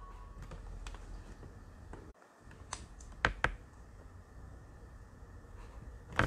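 Scattered clicks of a computer mouse and laptop keyboard: a few single clicks, two louder ones about three seconds in, and a quick run of clicks at the end.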